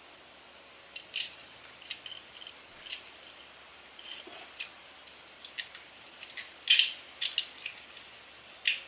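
Light metallic clicks, ticks and short scrapes of small metal engine parts and hand tools being handled and fitted, irregular, with the sharpest clicks about two-thirds of the way through and near the end.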